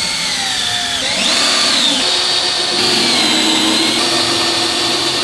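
Cordless drill driving a screw into the wooden table frame, its motor whining without a break. The pitch rises about a second in and eases back down a second later, then holds steady.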